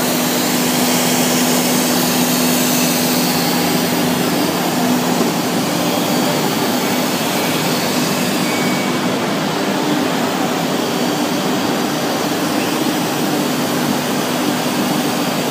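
A 3-axis CNC router running while engraving metal: a steady, loud machine noise with a dense hiss over a low hum. The hum shifts slightly higher about five seconds in.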